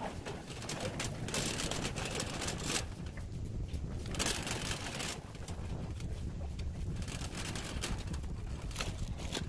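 Clear plastic bag crinkling and rustling in irregular bursts inside a wire shopping cart as the cart is pushed, over a low rolling rumble from the cart.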